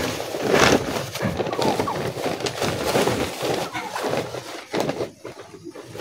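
Chickens clucking and chirping, with short call-like sounds among a busy background; it gets quieter near the end.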